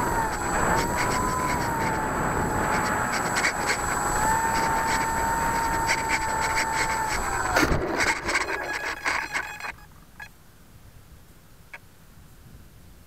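RC airplane's motor and propeller whining steadily at a fairly constant pitch, with wind rushing over the onboard camera's microphone; about seven and a half seconds in the throttle is cut and the whine drops away. The plane then touches down and scrapes and bumps across the grass for about two seconds before going quiet.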